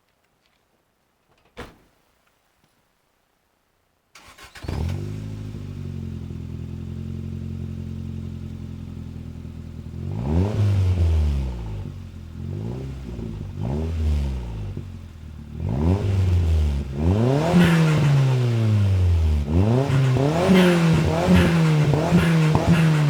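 Toyota Starlet Glanza V's turbocharged four-cylinder engine, breathing through a Japspeed cat-back exhaust, starts about four seconds in after a single click and settles to a steady idle. From about ten seconds it is blipped repeatedly, each rev rising and falling in pitch, with the revs coming closer together and louder near the end.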